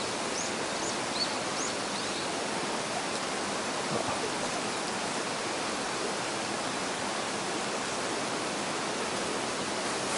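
Mountain stream running fast over rocks, swollen by rainy-season rain: a steady rush of water. A few short high chirps sound in the first couple of seconds.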